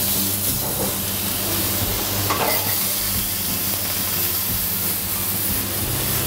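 Chicken breasts sizzling in a ridged grill pan on a gas stove, a steady hiss of frying.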